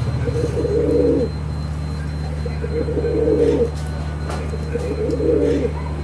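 Domestic ringneck doves cooing: three coos, each about a second long and a little over a second apart. A steady low hum runs underneath.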